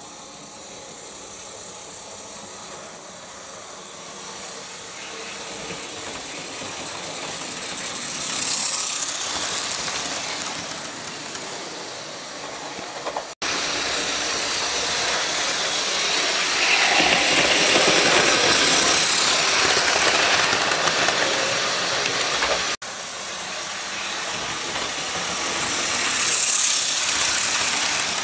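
Model railway trains running on the track: a steady whirr of small electric motors and wheels on the rails that swells as trains pass close by, broken twice by sudden cuts.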